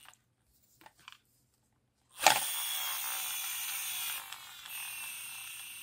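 Toy car's friction flywheel motor spun up suddenly about two seconds in. Its gears whirr with a rattling buzz from the small plastic noise-maker tab, and the pitch falls steadily as the flywheel runs down.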